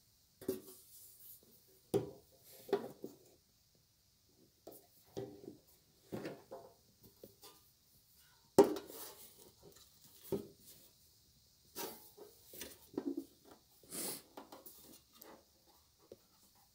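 Irregular light knocks, taps and rubs of handling around an idle benchtop band saw, with no motor running; the loudest knock comes about eight and a half seconds in.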